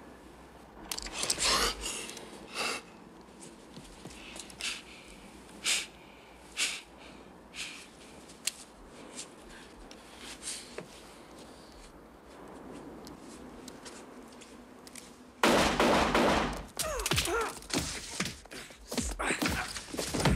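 Film fight scene sound: scattered sharp knocks and thuds, then a sudden loud scuffle with grunts and strained breathing for the last few seconds.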